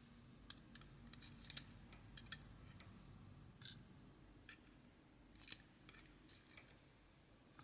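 Light, irregular metallic clicks and scrapes of small lock parts being handled: the pins and springs taken out of an Ikon N1 cylinder's plug.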